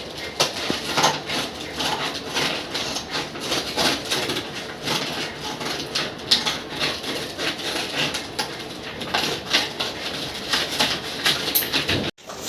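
Packaging being handled and opened by hand: continuous irregular rustling and crinkling with many small clicks and taps.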